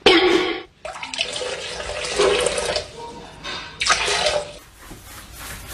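Water splashing and rushing in a toilet bowl in several bursts, about three in all, each up to a second or so long.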